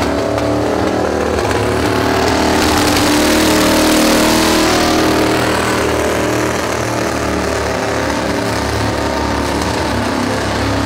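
Pick-up truck engine at high revs under heavy load, pulling a weight sled down the track. It is loudest about four seconds in as it passes, then eases off a little.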